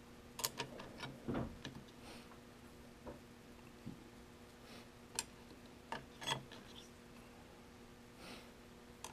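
Scattered light clicks and clinks of clutch plates, steel and friction discs, being slid one by one onto a Suzuki DR-Z400S clutch hub, over a faint steady hum.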